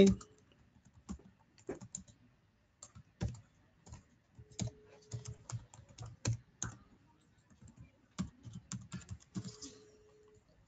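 Typing on a computer keyboard: irregular keystrokes in small clusters with pauses between them, as an email address and then a password are typed into a login form.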